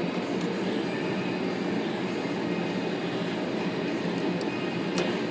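Steady low rushing background noise, with a few light clicks, the loudest about five seconds in.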